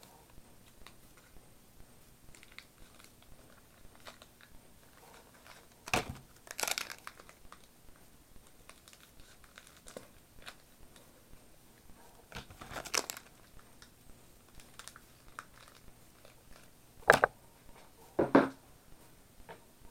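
Crinkling and rustling of card packaging and trading cards being handled, in scattered short bursts with quiet gaps between them. A few louder rustles come near the middle and near the end.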